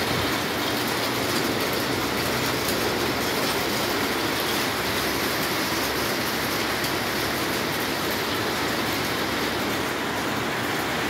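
Hailstorm: hailstones striking roofs and ground in a dense, steady rattle of countless small impacts.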